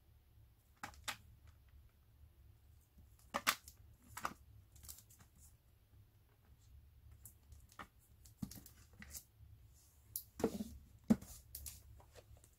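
A cellophane-wrapped box of 5.25-inch floppy disks being handled: scattered crackles of the plastic wrap and light taps of the box. There are louder knocks around ten and eleven seconds in as the box is set down.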